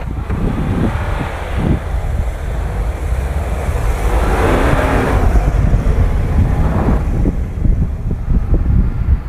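Car engine revving hard under load with a deep low rumble, swelling with a rushing noise to its loudest about halfway through and then easing off.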